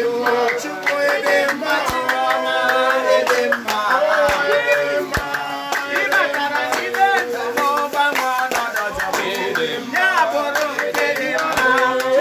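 A group of people singing together to rhythmic hand clapping and percussion.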